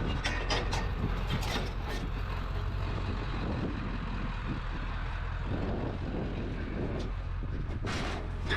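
Truck running with a steady low engine hum and road noise, with a few brief rattles in the first two seconds.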